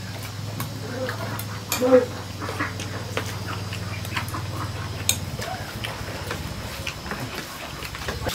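Meal sounds at a table: scattered light clicks and clinks of plates and spoons. There is a short animal call about two seconds in, over a low steady hum that stops about five seconds in.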